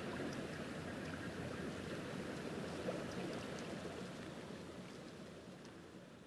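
Running water, a stream or river, with no music over it, fading out over the last couple of seconds.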